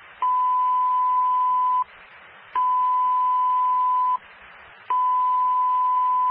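Fire dispatch alert tones over a scanner radio: three long, steady beeps at one pitch, each about a second and a half, with radio hiss between them, signalling the start of a dispatch.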